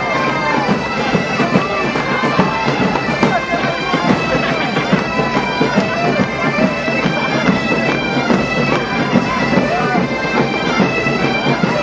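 A massed band of Portuguese/Galician bagpipes (gaitas-de-foles) playing a tune over their steady drones, with drums beating along.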